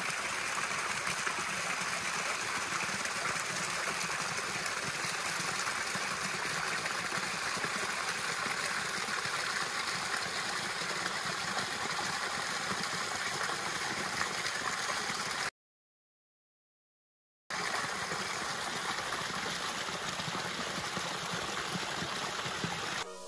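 Small waterfall: a thin stream pouring down a mossy rock face and splashing into a shallow pool, a steady rush of water. The sound cuts out completely for about two seconds partway through, then resumes the same.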